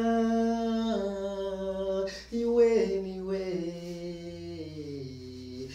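A man singing a cappella in long held notes: one phrase that steps down about a second in, a short breath about two seconds in, then a second phrase that slowly falls in pitch.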